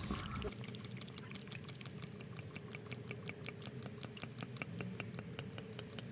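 New engine oil glugging as it is poured from a bottle into the engine's oil filler, a quick even run of small pops, about five a second.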